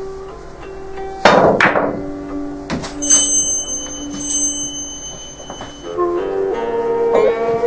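Russian billiards shot: a sharp clack of the cue hitting the cue ball about a second in, then the cue ball striking the object ball, and a few lighter knocks from the balls a second later. Background music with plucked-string tones plays throughout.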